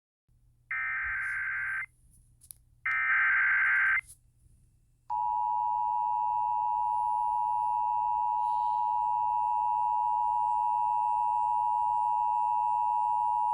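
Emergency Alert System signal for a severe thunderstorm warning. Two harsh one-second bursts of SAME header data come first, then a steady, loud attention tone starts about five seconds in and holds to the end. Together they signal that a warning message is about to be read.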